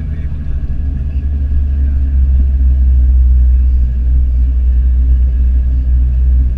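Steady low rumble of a car's engine and road noise heard from inside the cabin as it drives along, growing a little louder about two seconds in.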